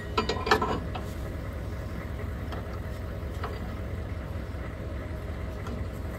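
Metal clinks and rattles from a tie-down strap's hook being fitted at a pickup's rear bumper, mostly in the first second, with a few faint ticks later. A steady low rumble runs underneath.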